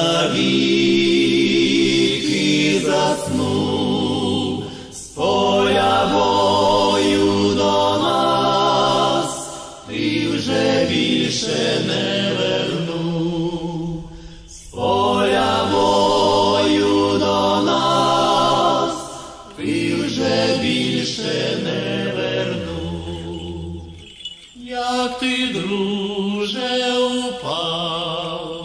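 A choir singing a mournful chant in long phrases of about five seconds, each followed by a brief break.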